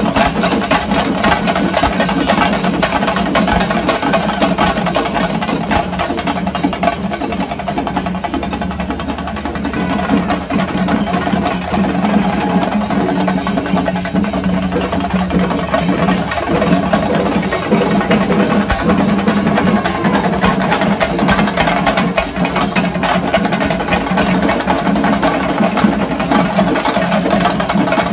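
Procession music: loud, fast drumming with steady held tones beneath it, going on without a break.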